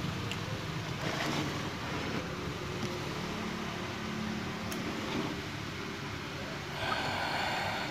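Steady low mechanical hum in the background, with a few faint clicks and a short rustling hiss near the end as the mixer's circuit boards are handled.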